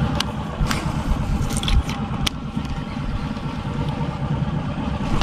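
Small engine running steadily at low speed, with a few sharp clicks over it.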